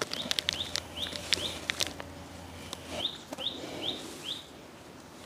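A small bird calling with short rising chirps, ending in a quick run of four about three seconds in. Light clicks can be heard in the first two seconds.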